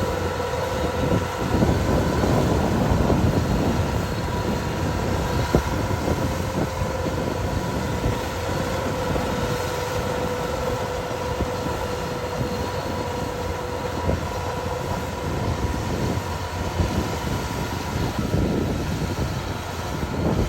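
Kubota DC-105X combine harvester running steadily, a constant heavy engine drone with a steady whine over it.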